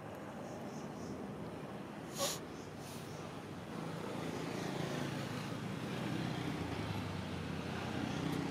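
Outdoor background with a motor vehicle engine running, its low hum growing louder from about four seconds in. A single brief sharp sound comes about two seconds in.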